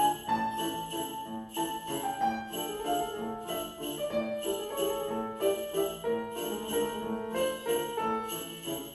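Two grand pianos played four-hands, with small jingle bells shaken in rhythm with the music.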